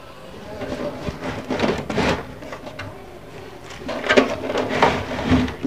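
Handling noise of wires, a circuit board and plastic being moved about at the back of a CRT television: irregular rustling with light knocks and clicks, in two spells about a second in and again near the end.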